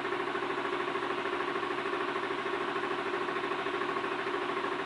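Diesel pickup truck engine idling steadily, heard from inside the cab, with a small regular pulse in its loudness.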